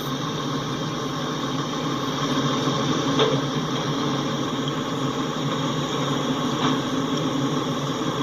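Autorack freight train rolling past: a steady rumble of the train in motion, with a faint knock about 3 seconds in and another about 6.5 seconds in.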